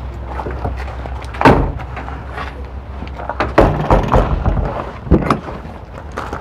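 A loud bang about a second and a half in, like a motorhome's aluminum storage compartment door being shut, followed by a few lighter knocks and steps on gravel over a steady low rumble.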